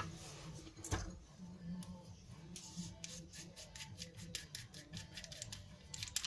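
Mercedes OM603 diesel fuel injector being unscrewed and taken apart by hand with metal tools. There is a sharp click at the start and another about a second in, then a fast run of light metallic clicks from about two and a half seconds in.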